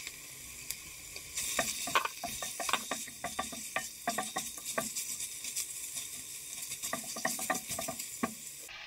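Shredded chicken, chicken liver and fish balls sizzling in oil in a pot while a silicone spatula stirs them: a steady hiss with many quick knocks and scrapes against the pot from about a second and a half in until near the end.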